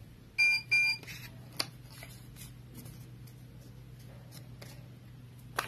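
Two short electronic beeps about half a second in, then quiet rustling of sublimation paper and small taps as hands fit a cut paper print onto a keychain blank, over a low steady hum.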